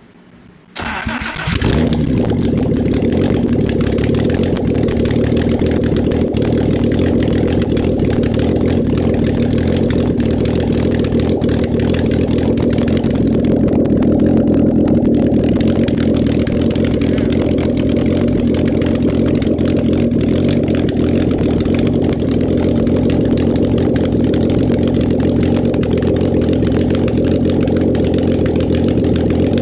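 Freshly rebuilt VR6 engine, with new piston rings, starting up about a second in and then idling steadily.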